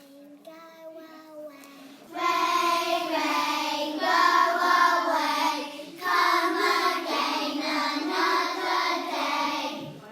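A class of young children singing a song together in unison, coming in loudly about two seconds in after a quieter lead-in, with a brief pause for breath near the middle.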